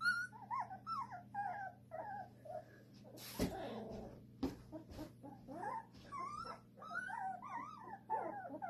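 A litter of young puppies whimpering and squeaking in a quick, overlapping string of short high-pitched cries, with a single thump about three and a half seconds in.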